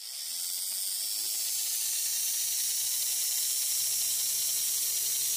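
Small electric motor of a Lima HO-scale 2-8-2 steam locomotive running steadily on test leads clipped straight to its terminals: an even hiss with a faint hum that starts abruptly. It runs freely, showing the motor itself is sound.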